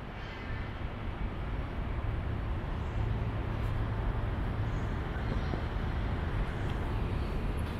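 Street traffic noise: a steady low rumble of passing vehicles that grows louder over the first couple of seconds, then holds steady.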